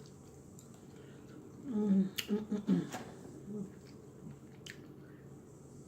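A person eating fried chicken close to the microphone: wet mouth clicks and smacks, with a brief muffled voiced sound of a few syllables about two seconds in.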